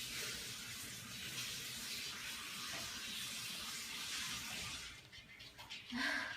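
Running water, a steady rushing hiss that fades out after about five seconds, with a brief louder sound near the end.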